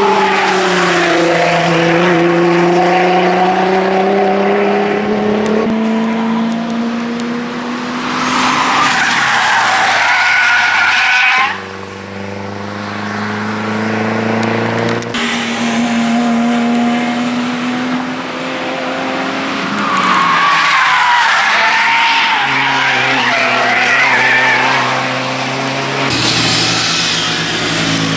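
Several sports cars passing one after another through a bend on a wet track, engines revving up and down, a Nissan GT-R sliding through first. Tyres squeal as the cars slide, loudest in two stretches in the middle and toward the end.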